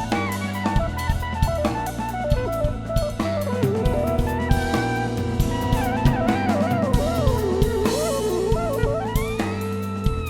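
Background music: a song with a steady drum-kit beat, bass and a melody line that slides up and down.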